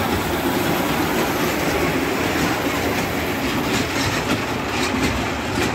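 Children's park mini train running along its track, heard from on board: a steady rumble of the ride, with a run of sharp clicks from the wheels and track in the second half.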